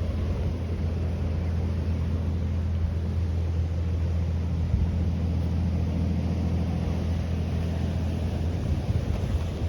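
A steady low engine drone that weakens shortly before the end.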